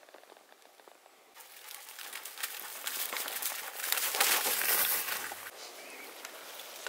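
Rustling and crackling of feet moving through dry forest-floor undergrowth. It starts about a second and a half in, grows louder and is loudest around four to five seconds, then eases off.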